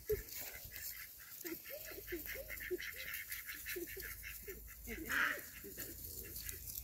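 Ducks quacking in a rapid run of short calls, with one louder call about five seconds in.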